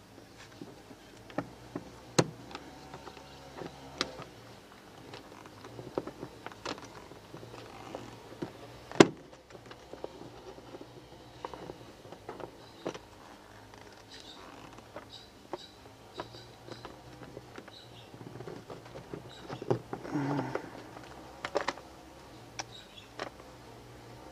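Scattered clicks and knocks of hard plastic and metal parts being handled and pushed into place as a Gerni pressure washer gun is reassembled by hand. A sharper knock comes about nine seconds in.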